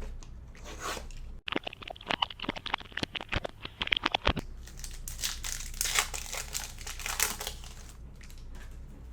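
Panini Select basketball card packaging being torn open and crinkled: a run of sharp crackles from about a second and a half in, then a softer rustling.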